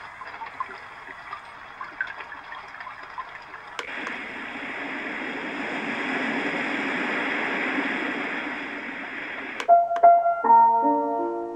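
Small white noise machine's speaker stepping through its built-in sounds: a faint hissing nature sound with small chirps, a click about four seconds in, then a louder rushing noise that swells and eases, then another click near the end and a simple plinking lullaby tune starts.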